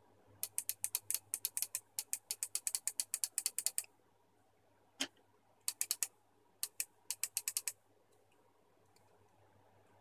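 Snap-action contact mechanism of an opened Siemens washing-machine pressure switch clicking as its plastic lever is worked by hand. A rapid run of clicks lasts about three and a half seconds, then comes a single click about five seconds in, then two shorter runs of clicks.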